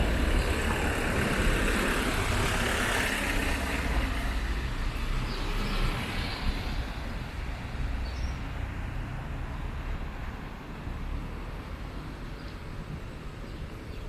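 A car going by on the street, its tyre and engine noise loudest at first and fading away over the following seconds, over a low rumble.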